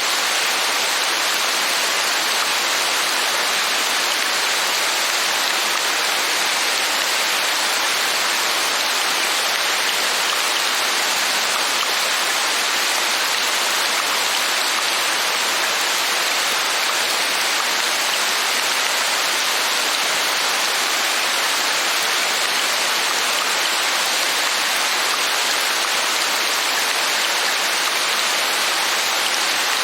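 Steady rain falling: an even, unbroken hiss that does not change.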